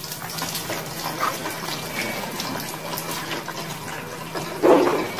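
Water running steadily, filling a basin, with a louder, brief rush of water about four and a half seconds in.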